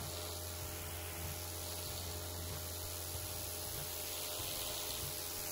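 Kärcher K5 Compact pressure washer running, its Dirt Blaster rotating lance spraying a concrete paving slab: a steady hiss of the water jet over a steady low hum.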